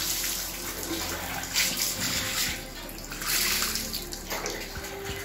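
Water being poured over a golden retriever's wet coat during a bath, splashing onto a tiled floor, with louder pours about one and a half and three seconds in.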